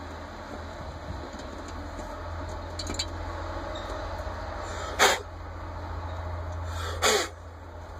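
Faint clicks of a screwdriver working the main jets out of a Rochester Quadrajet carburetor's float bowl, over a steady low hum. Two short noisy bursts, about five and seven seconds in, are the loudest sounds.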